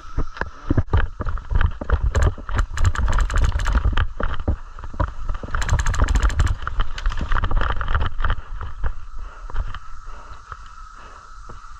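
Rustling and handling noise with many sharp clicks and rumbling thumps on a body-worn microphone, as from a player moving through woodland with gear; two dense spells of clicking, then quieter after about nine seconds.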